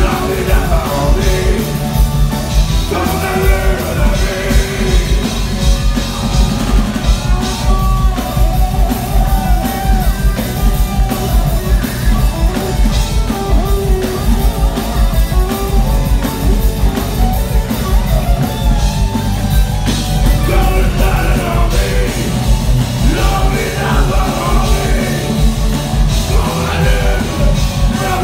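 Live rock band playing loudly and without a break, with an electric guitar playing lead over pounding drums and bass.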